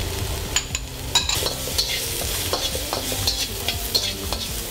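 Stir-frying in a hot steel wok: a metal spatula scraping and turning the food over a steady sizzle, with repeated sharp scrapes and clicks of metal on the pan.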